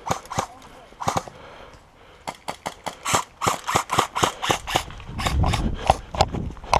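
Airsoft guns firing: a few single sharp shots, then from about two seconds in a fast string of shots, several a second. A low rumble comes in briefly near the end.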